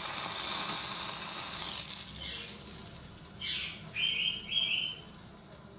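Gas stove burner hissing for the first two seconds or so, then fading. Then a pet parrot calls: a quick swooping note, followed by two short shrill calls in quick succession.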